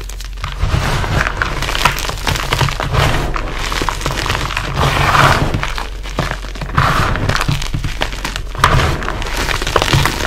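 WOD Nation gym chalk cubes and loose chalk crushed and squeezed by hand in a bowl: a steady run of crunching and crumbling with dense little crackles. Near the end, crushed chalk sifts from the hands back into the bowl.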